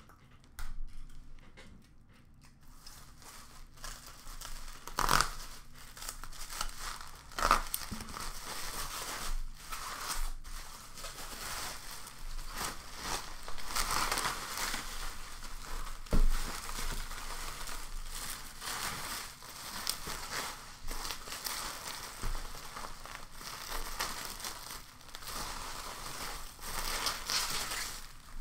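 Plastic bubble wrap being pulled off and unfolded by hand: continuous crinkling and rustling, with a few sharp cracks along the way, the loudest a little past halfway.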